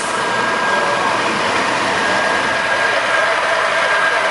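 Heavy diesel semi tractor running steadily as it pulls a loaded lowboy trailer slowly forward, with a steady high whine over the engine noise.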